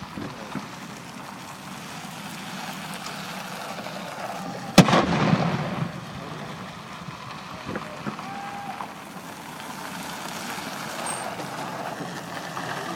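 A single ceremonial saluting-cannon shot, one round of a 19-gun salute: a sharp bang about five seconds in, followed by a rolling echo that dies away over about a second.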